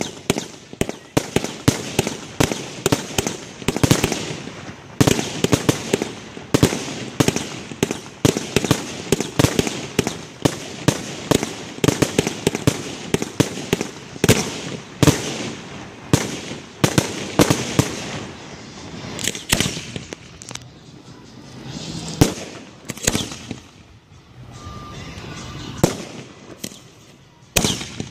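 Fireworks display: rapid volleys of aerial shells bursting, many bangs a second, thinning to scattered single booms with quieter gaps in the last several seconds.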